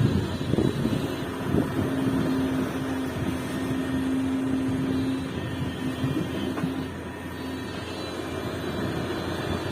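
Hidromek HMK 370 LC excavator's diesel engine running under load, with a steady whine held for several seconds as the hydraulics work. A few knocks come in the first second or so.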